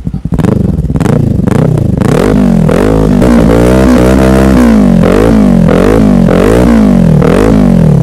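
Kawasaki Ninja 400's parallel-twin engine through an R9 Alpha slip-on muffler, revved on the stand: a few short throttle blips, then repeated revs rising and falling about once every 0.7 seconds.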